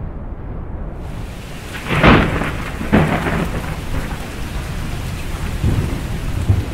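Rain falling steadily with thunder: two loud claps about a second apart a couple of seconds in, and a lower rumble near the end.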